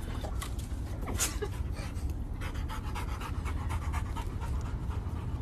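A large dog panting, with a few faint clicks over a low steady rumble.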